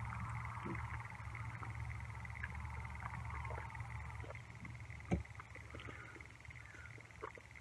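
A man chewing a large mouthful of hamburger close to the microphone, with scattered small mouth clicks and one sharper click about five seconds in, over a steady low background hum.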